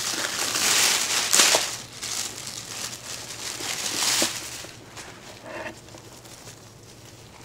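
Plastic wrapping crinkling and rustling as bags are pulled open and a handbag is drawn out, loudest for the first two seconds, then fainter rustles that die away about four seconds in.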